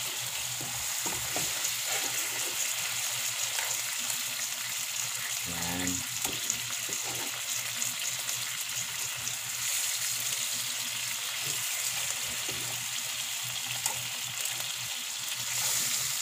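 Thin tuna steaks sizzling steadily in a nonstick frying pan, in a shallow sauce with calamansi juice just added. Tongs click against the pan now and then as the fish is turned and moved.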